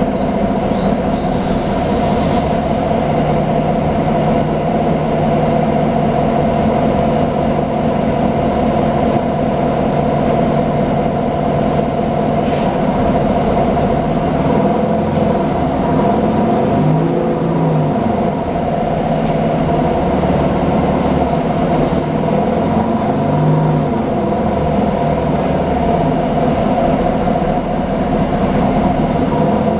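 Nova Bus LFSA articulated city bus running, heard from inside: a steady drone of engine and road noise with a constant hum. A brief air hiss comes about a second in, and a few light clicks follow later.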